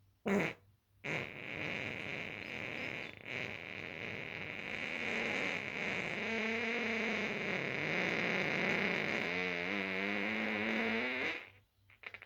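A long, drawn-out fart: a short blast just after the start, then one continuous fart lasting about ten seconds that wavers in pitch in its last few seconds and cuts off suddenly.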